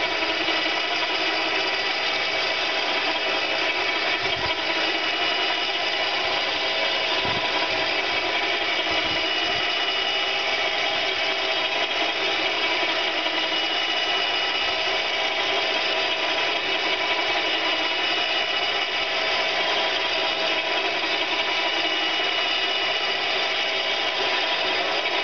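Power-driven cable winch running steadily under load as it hauls a boat along on its cradle, with a constant motor whine.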